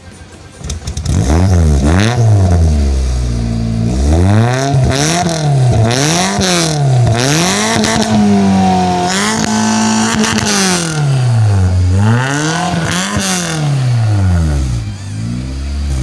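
Suzuki Baleno's four-cylinder engine revved through a freshly welded aftermarket racing exhaust: the revs climb and drop again roughly every second or so, held higher for about two seconds in the middle, then settle back toward idle near the end.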